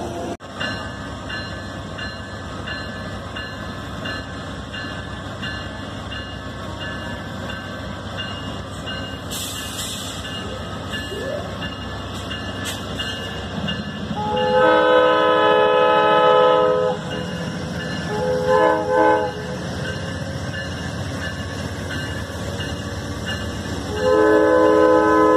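Horn of an Amtrak GE P42DC diesel locomotive as the train comes into the station: one long blast, two short blasts, then another long blast near the end. Under it runs the steady rumble of the train's engine and wheels.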